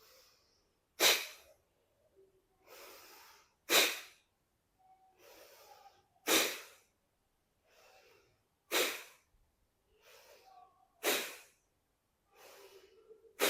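Kapalbhati breathing: six sharp, forceful exhales through the nose about two and a half seconds apart, each followed by a softer, longer inhale.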